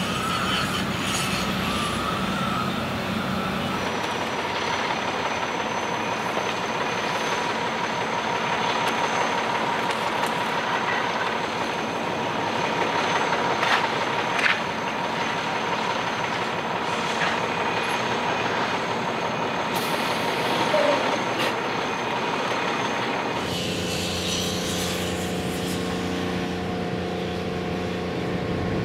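Ready-mix concrete mixer truck running steadily while discharging concrete down its chute, with a steady whine over the engine noise and a couple of sharp knocks. The sound shifts abruptly about four seconds in and again near the end, to a lower steady hum.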